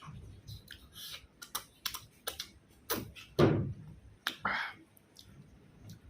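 Close-miked eating sounds: irregular sharp chewing and crunching clicks, with a louder wet mouth sound falling in pitch about three and a half seconds in and a smaller one a second later.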